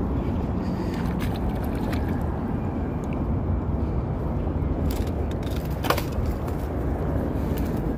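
Steady low rumble of outdoor background noise, with a few sharp knocks about five to six seconds in as the phone is handled.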